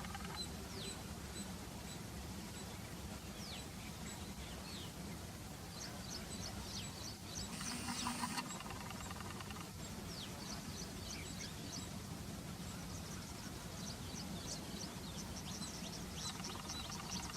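Small birds chirping and calling over and over, short high chirps and quick falling whistles, over a steady low hum, with one brief louder burst about eight seconds in.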